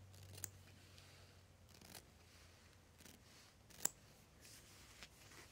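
Near silence with a few faint, sharp clicks and light rustles from hand embroidery work on cloth; the loudest click comes about four seconds in.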